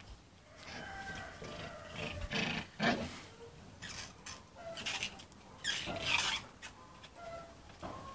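A litter of puppies play-fighting, with short growls and yaps, the loudest about three and six seconds in, and brief high squeaks in between.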